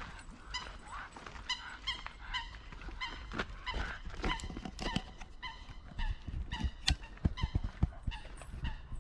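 Waterbirds on the lake calling: many short, honking calls in quick succession, with scattered sharp clicks among them.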